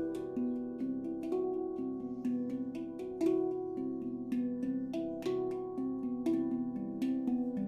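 Handpan in C Aegean tuning with an Ayasa ember-steel shell, played by hand: a quick stream of struck notes, each with a soft tap at the strike, ringing on and overlapping the next.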